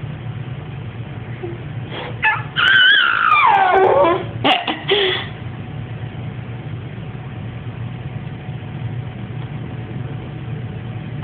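High-pitched squealing vocal noises about two seconds in: a few short yelps, then a long squeal that slides down in pitch, and a couple of brief ones after. A steady low hum lies underneath throughout.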